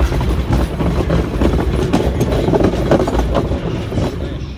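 Train carriage running along the track: a steady rumble of wheels on rails with a scatter of clicks from the rail joints, dying away at the very end.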